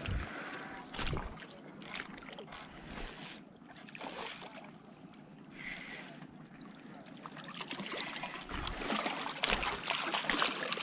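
Spinning fishing reel being cranked, its mechanism ticking as a hooked carp is wound in. Near the end the carp thrashes and splashes in the shallow water at the shore's edge as it is landed.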